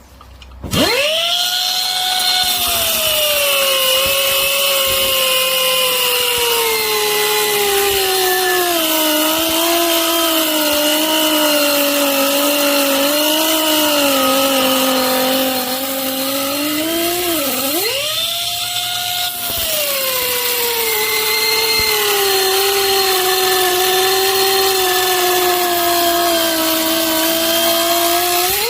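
A 7-inch lightweight pneumatic angle grinder, just overhauled, spinning up sharply about a second in and then grinding. Its whine sinks and wavers as the disc is pressed into the work, falters and climbs back to full speed about two-thirds of the way through, sinks again under load, and rises as the load comes off at the very end.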